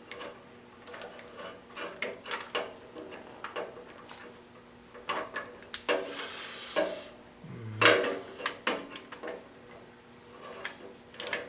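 A torque wrench and socket knocking, clicking and scraping against metal as they are worked into a tight spot to reach a rear fastener. There is a short rasping scrape about six seconds in and a sharp knock near eight seconds.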